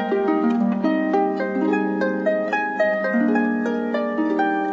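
Harp playing alone: a run of plucked notes, several a second, each left to ring over the next.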